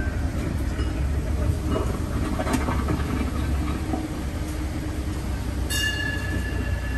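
Steady low rumble of a small tourist road train running slowly, heard from its open carriage. Near the end a steady high-pitched tone comes in and holds.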